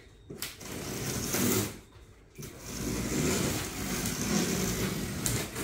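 Box cutter slicing through cardboard and packing tape along a box seam: two long cuts with a short pause between them, the second the longer.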